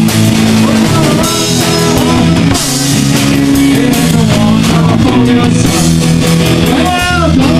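Rock band playing loud and continuous: drum kit with cymbals, bass guitar and electric guitar with bending notes.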